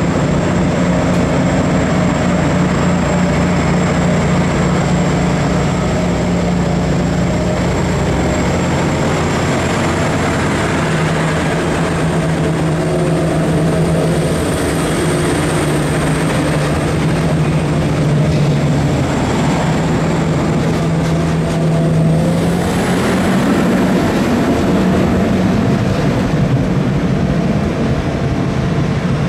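Korean diesel railcar running: a steady, loud engine drone with a thin high whine above it that shifts up slightly about two-thirds of the way through.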